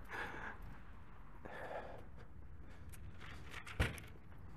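A man's breathy sighs close to the microphone, twice in the first two seconds, then a single sharp thump about four seconds in.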